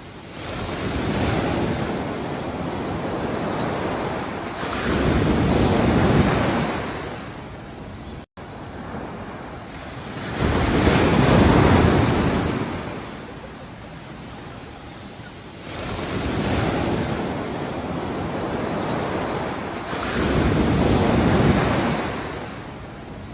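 Ocean waves washing in, about five waves, each swelling up and dying away over a few seconds. The sound drops out for an instant about eight seconds in.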